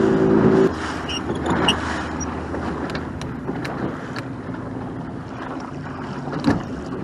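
Small fishing boat's engine running, then cut back to a low idle about a second in, leaving a faint hum and water lapping at the hull. Near the end a short splash as a boat hook is dipped into the water to catch the gill net's buoy rope.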